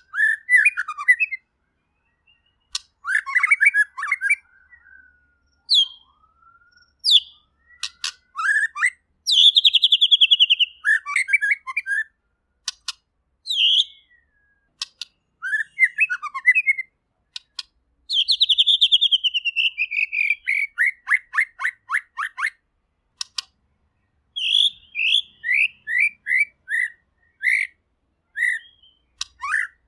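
White-rumped shama singing a varied song in separate phrases broken by short pauses: whistled notes, quick chattering trills, a long falling run of notes about two-thirds of the way through, and fast repeated notes near the end.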